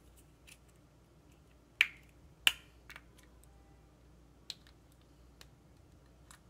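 Plastic LEGO pieces clicking as they are handled and pressed together, with two sharp loud clicks about two seconds in and a few fainter ones scattered after.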